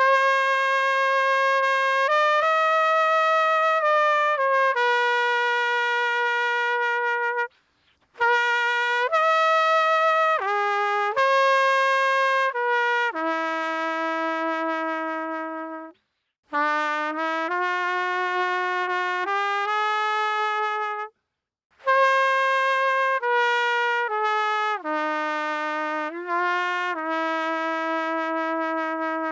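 Unaccompanied solo trumpet playing a slow melody in long held notes. The phrases break off for short breath pauses about eight, sixteen and twenty-one seconds in.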